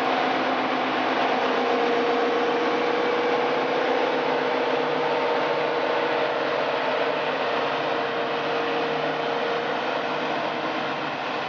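British Rail Class 55 Deltic diesel locomotive pulling away under power, its twin Napier Deltic two-stroke engines running with a steady, dense drone and a held tone, easing slightly near the end as it moves off.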